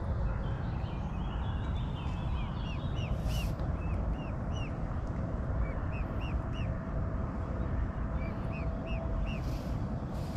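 A bird calling in runs of short, quickly repeated chirps over a steady low rumble.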